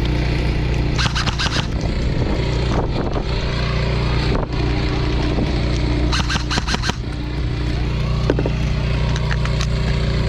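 Airsoft gun firing two short full-auto bursts of rapid, even shots, about a second in and again about six seconds in, over a steady low rumble.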